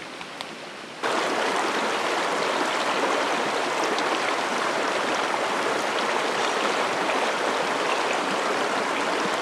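Shallow rocky mountain creek running over stones: a steady rush of water that comes in suddenly about a second in and holds level.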